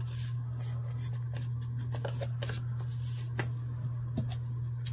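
Thin patterned paper rustling and crinkling as it is folded and handled, in a run of short crisp rustles, over a steady low hum.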